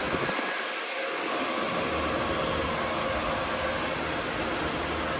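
Steady whir of the cooling fans on running GPU mining rigs, with faint steady tones in the noise and a low hum joining about two seconds in.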